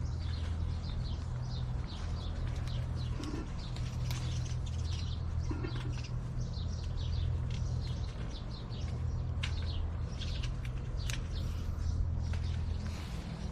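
Small birds chirping again and again in short high calls, over a steady low hum.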